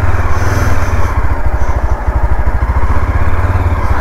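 Motorcycle engine running steadily, a dense low pulsing beat.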